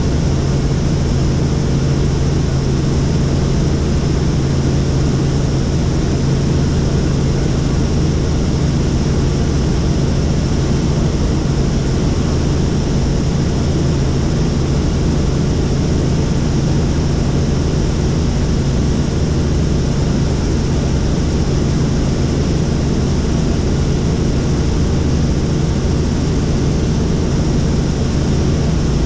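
Helicopter in flight, heard from inside the cabin: steady engine and rotor noise with a strong low hum, unchanging throughout.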